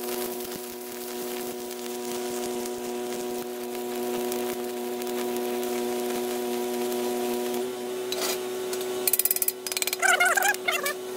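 Stick-welding arc crackling and sizzling over a steady droning hum. Near the end it gives way to a flurry of rapid sharp taps from a small hammer on the steel weld.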